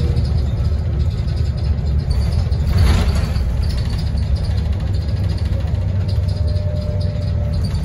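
Double-decker bus's diesel engine and road noise heard from inside the upper deck while under way: a steady low rumble, with a short hiss about three seconds in.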